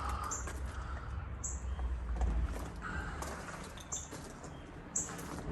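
Short, high bird chirps at irregular intervals, a few times, over a low wind rumble on the microphone.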